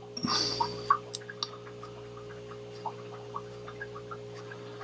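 Flat chisel brush working paint on paper: faint, irregular small ticks and scratches of the bristles, with a brief rush of noise about a quarter second in, over a steady low hum.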